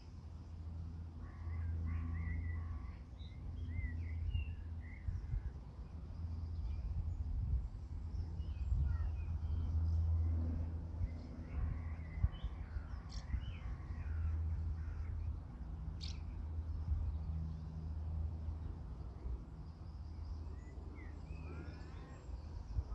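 Birds calling in scattered bursts of short calls, over a steady low hum. A single sharp click sounds about two-thirds of the way through.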